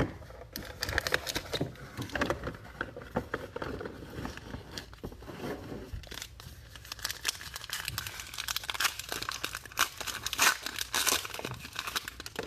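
Plastic shrink-wrap being torn and crinkled off a sealed box of trading cards, a steady run of crackles and sharp snaps.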